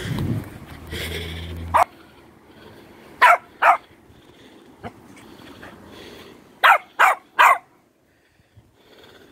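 Small dog barking in short, sharp, high yaps: one, then a pair, then three in quick succession.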